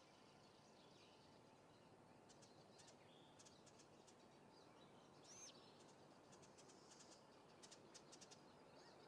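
Faint, high bird chirps over a quiet background hiss, with a few short rapid trills of clicking notes.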